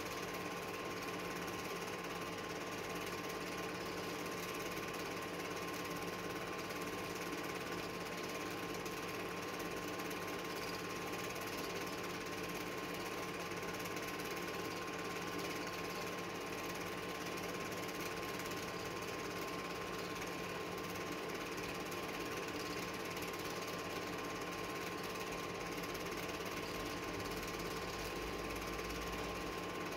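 Home-movie film projector running: a steady mechanical whirr with constant humming tones and no change throughout.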